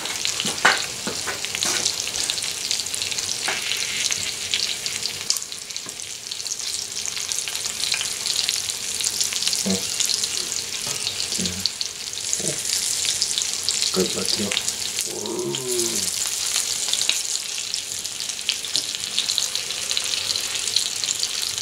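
Pieces of flour-dredged meat frying in bacon grease in a cast-iron skillet: a steady sizzle dotted with many small crackling pops.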